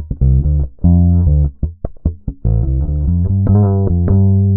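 SG-style electric bass playing a bass line of short, separated notes with a few held ones; a last note rings on steadily from near the end.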